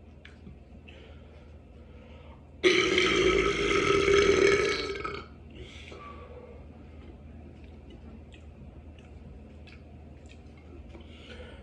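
A single deliberate, loud burp, drawn out for about two and a half seconds, starting about three seconds in.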